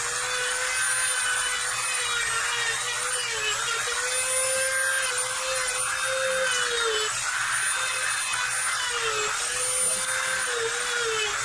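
Dremel rotary tool running at high speed, sanding down the cut-off plastic ears on a headlight retaining clip. It gives a steady high whine whose pitch sags briefly several times as the tool is pressed into the stiff plastic.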